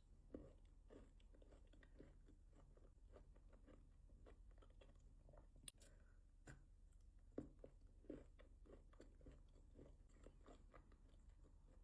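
Faint chewing of milk chocolate with biscuit pieces: a run of small, irregular crunches and mouth clicks, with a few louder crunches in the middle.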